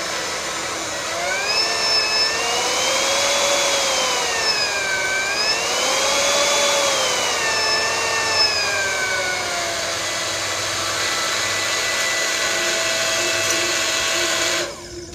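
Utilitech utility transfer pump's electric motor running while still trying to prime, a loud whir with a whine that rises and falls in pitch twice, then holds steady, and cuts off near the end.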